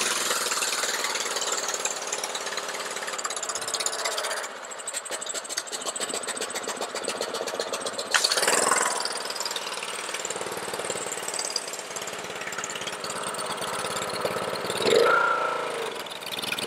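Honda-powered Ryobi 3100 PSI pressure washer engine running under a steady hiss, with its idle kickdown cable bypassed. Its sound drops about four seconds in and picks up again with a sharp click near the middle.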